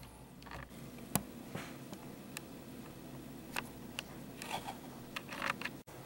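Faint handling noise from a handheld camera: soft rustles and scattered small clicks over a quiet room hum, with one sharp click about a second in and a momentary dropout near the end.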